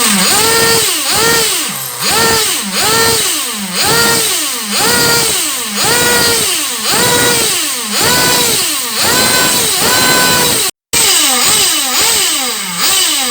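Thunder Tiger SB4 RC car's motor revved over and over, about a dozen quick rises in pitch, each falling away before the next. The sound cuts out completely for a moment about eleven seconds in.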